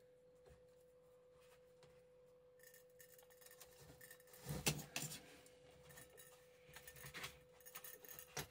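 Aluminium tube being bent by gloved hands around a glass wine bottle: faint rubbing and creaking, with a few soft knocks of the tube against the bottle about four and a half to five seconds in. A faint steady tone sits underneath.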